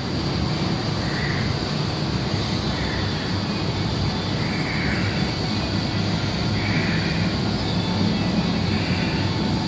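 An engine running steadily throughout, from the machinery lifting a load off a truck.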